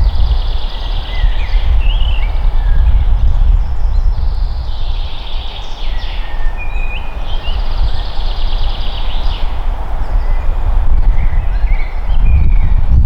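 Forest birds singing: several fast high trilling songs repeat every few seconds, with short chirps that rise and fall in pitch between them. Under the birds runs a loud steady low rumble of wind on the microphone.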